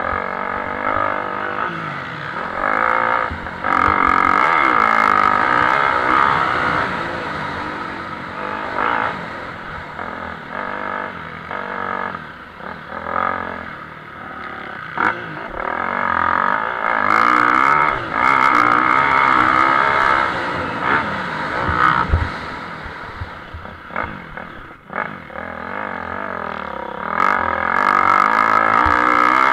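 Motocross motorcycles racing on a dirt track, engines revving up and dropping back as the riders accelerate and shift, swelling loudest as bikes pass at about four, eighteen and twenty-eight seconds in.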